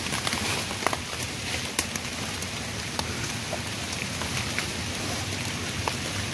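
Rain falling on forest foliage: a steady patter with scattered sharp drop ticks.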